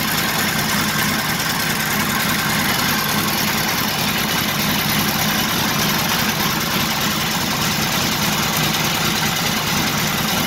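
1940 Harley-Davidson UH 80-cubic-inch flathead V-twin idling steadily on its first run after restoration. The owner judges it to be running rich, with the carburettor float height possibly set too high.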